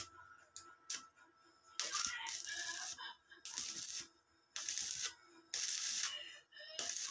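Arc welding on steel tubing: the arc crackles in about five short bursts of half a second to a second each, with a few sharp clicks before the first.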